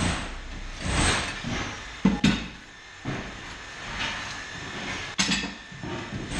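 Hammer blows on a wall during demolition: two quick sharp knocks about two seconds in and one more near the end, with bursts of noise in between.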